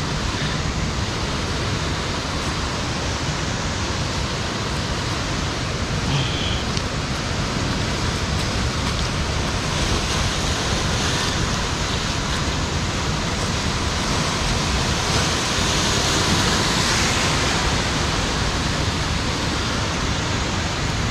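Steady rushing noise of sea surf against the cliffs, mixed with wind on the microphone, swelling a little about halfway through and again later.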